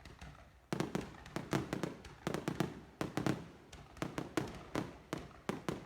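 Fireworks going off: a rapid, irregular string of sharp bangs and crackles that starts about a second in and keeps going.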